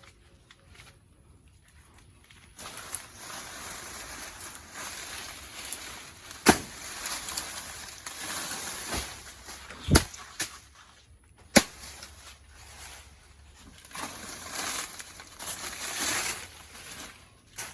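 Outdoor rustling and handling noise, with three sharp knocks spread through the middle.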